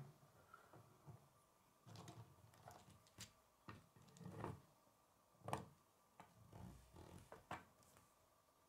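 Faint, scattered clicks and knocks of a plastic K'nex toy car being handled: pieces and wheels rattling and tapping down on a wooden tabletop. The loudest knock comes about five and a half seconds in.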